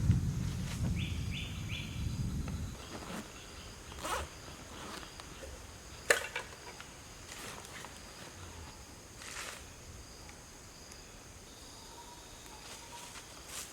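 Forest background with a faint steady insect drone. A low rumble fills the first few seconds, and scattered short knocks and clicks follow, the sharpest about six seconds in.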